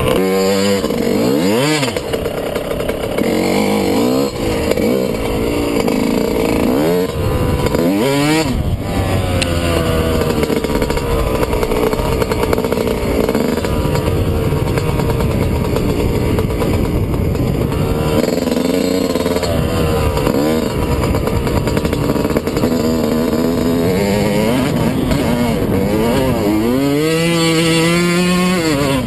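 Yamaha YZ125 dirt bike's 125 cc two-stroke single-cylinder engine under riding load, its pitch rising and falling again and again with the throttle, with a sharp rev-up and drop near the end.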